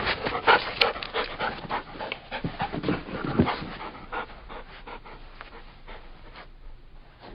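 Labrador Retriever panting in quick, rapid breaths, loudest over the first few seconds, then thinning out and fading.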